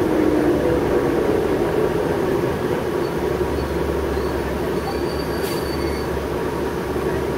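Inside a moving New Flyer C40LF natural-gas transit bus: the drivetrain runs with a steady whine over road and cabin noise. A deeper rumble joins about three seconds in.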